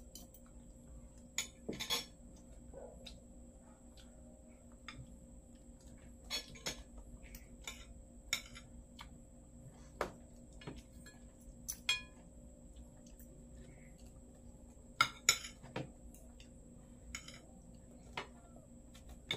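Spoons and forks clinking and scraping on plates as people eat, in scattered sharp clicks, the loudest two close together about fifteen seconds in.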